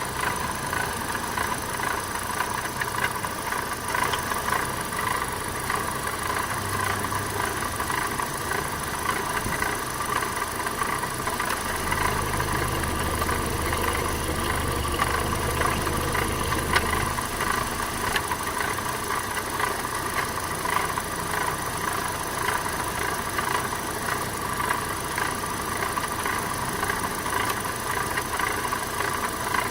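Opel Astra 1.6 16V (X16XEL) inline-four petrol engine running steadily with a fast, light rattle in its sound. A deeper hum comes in for about five seconds midway.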